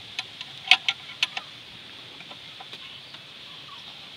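Sharp metallic clicks of a 12 mm wrench working the alternator's lock bolt loose: several quick ones in the first second and a half, then a few fainter ones, over a steady faint high hiss.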